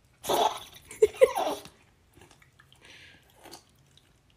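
Small dog on its back making short vocal noises while its belly is rubbed: a cluster of brief pitched yelps and grumbles, the loudest two close together about a second in, then only faint snuffles.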